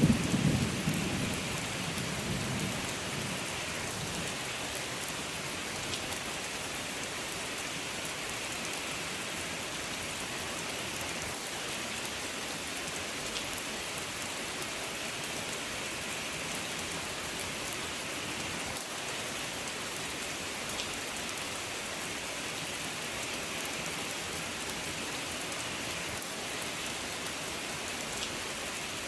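Steady rain: an even hiss with scattered drop ticks. The tail of a thunder rumble dies away in the first few seconds.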